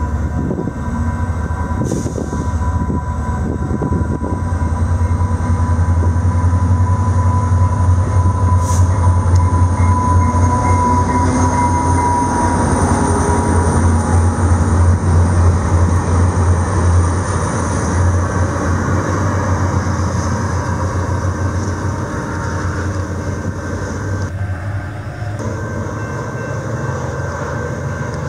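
VIA Rail F40PH-4 diesel locomotive and its stainless-steel passenger cars running through the station: a steady low rumble with the rolling noise of the cars' wheels on the rails, loudest through the middle as the cars pass and easing off near the end as the train pulls away.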